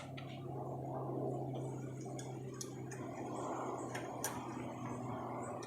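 A few sharp light clicks of small metal parts being handled on a mower deck, about halfway through and again near the end, over a steady low hum and a rushing background.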